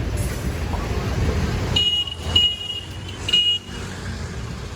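Low rumble of a motor vehicle, then three short high-pitched beeps or toots in quick succession a couple of seconds in.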